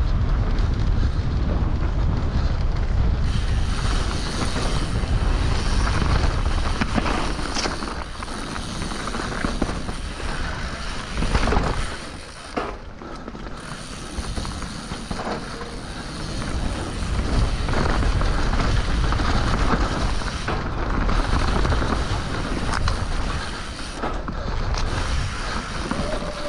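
Mountain bike ridden fast downhill on a dirt trail: wind rushing over the on-bike microphone, tyres running on dirt, and the bike rattling with sharp knocks over bumps and roots.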